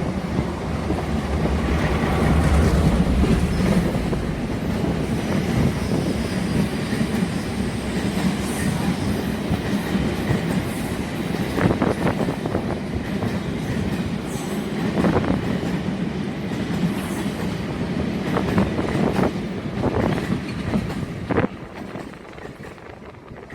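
Diesel train passing close by. An engine drone is heard in the first few seconds, then the wheels clatter over the rail joints with scattered knocks, and the sound drops away sharply near the end.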